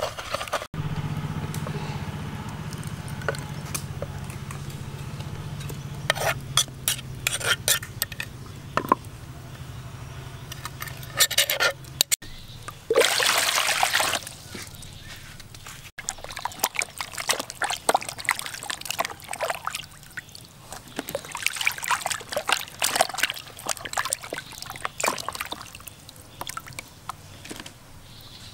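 Water pouring into a plastic basin and splashing as a softshell turtle is washed in it, loudest for about a second in the middle, followed by scattered small splashes and knocks. A low steady hum runs through the first third.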